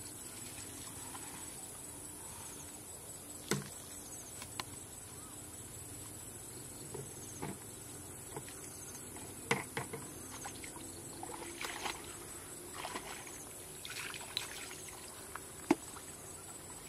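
Footsteps through tall, dry grass, with stems rustling and swishing and several sharp snaps, over a steady high drone of insects.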